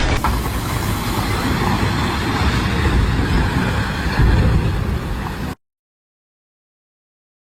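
Heavy machinery running with a dense, steady rumble. It cuts off abruptly about five and a half seconds in, leaving silence.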